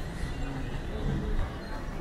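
Airport terminal hall ambience: a steady murmur of distant voices mixed with faint background music.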